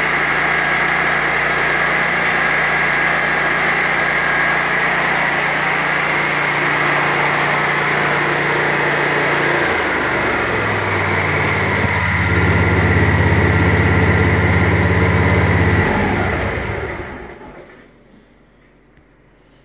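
The Kohler engine of a 2012 Exmark Turf Tracer walk-behind mower running steadily, then throttled down about halfway through, its pitch dropping. Near the end it is shut off and winds down to a stop.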